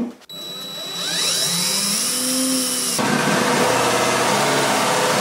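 Cordless drill boring a 1¼-inch hole through the wooden back panel of a cabinet: the motor runs continuously under load as the bit cuts, its pitch shifting about three seconds in.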